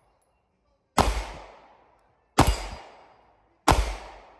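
Three gunshots about a second and a half apart, each with a sharp crack and a reverberating tail that dies away over about a second.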